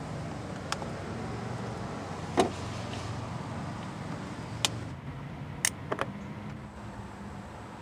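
Small metallic clicks from under-hood work on the Jeep's power steering hose clamp and battery terminal. The sharpest click comes about two and a half seconds in, with a few lighter clicks around the middle, over a steady low hum.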